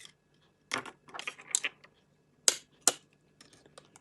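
Sharp taps and clicks of eggs being cracked and a microwave egg cooker being handled, with two loud taps near the end.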